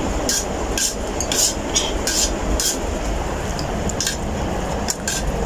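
Fingers mixing rice and yogurt raita on a ceramic plate: short, irregular scraping clicks, roughly two a second, over a steady rushing background noise.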